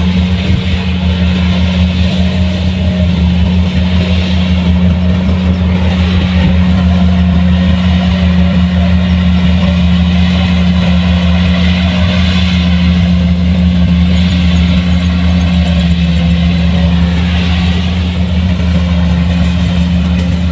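Diesel engine of a Kubota rice combine harvester running loud and steady at a constant speed, with mechanical clatter over the low drone.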